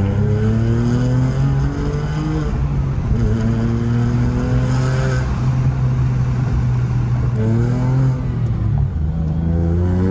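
Porsche 996's 4.0-litre flat-six, a stage-two Flat Six Innovations build, pulling hard under acceleration, heard from inside the car. The engine note climbs in pitch and drops back at each upshift, several times over.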